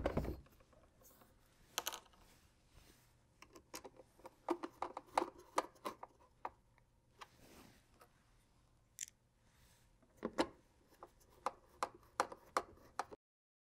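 Hand screwdriver driving plastic screws into the plastic corner pieces of a tackle crate's bottom: faint scattered ticks, clicks and scrapes, after a single knock at the start.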